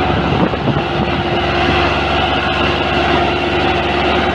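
Belarus 510 tractor's diesel engine running steadily, hitched to a double disc harrow dug into the soil.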